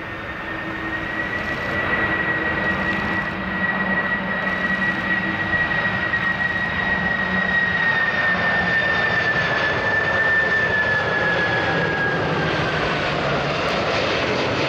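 Boeing 747-400's four GE CF6-80C2 turbofans on final approach for landing: a steady high whine over a broad rushing jet noise that grows louder as the airliner nears, the whine sinking in pitch near the end as it passes.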